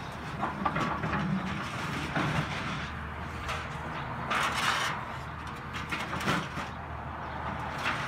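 Tracked excavator's engine running steadily as its arm tears into a house's upper storey, with several crunching, cracking noises of breaking wood and siding, the loudest about halfway through.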